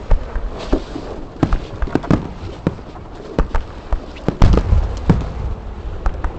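Fireworks going off: a string of irregular sharp bangs and crackles from aerial shells bursting, the loudest and deepest bang about four and a half seconds in, with rumble after it.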